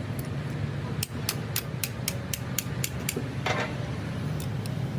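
A quick run of sharp metal taps, about four a second, from tools working on the machine's metal parts, over a low steady hum.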